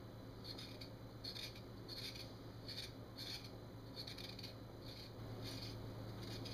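Paring knife scraping the skin off a Jerusalem artichoke (sunchoke) in short, faint strokes, about two a second.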